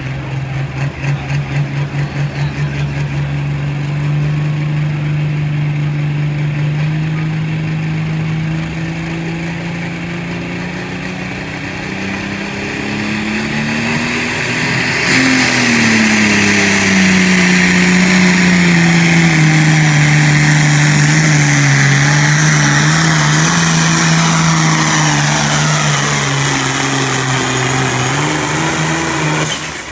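Diesel pulling tractor's engine at full throttle, dragging a weight-transfer sled down the track. Its pitch climbs for about fifteen seconds, then falls back as it keeps pulling and gets louder. The sound drops away right at the end as the pull finishes.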